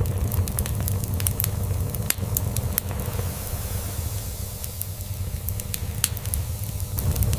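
Log fire crackling, with irregular sharp pops and snaps, over a steady low rumble of a cat purring.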